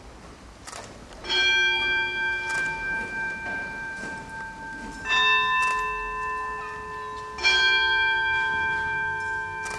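Altar bells struck three times during the blessing with the monstrance, each stroke ringing on with a slow fade. The second stroke rings at a different pitch from the first and third.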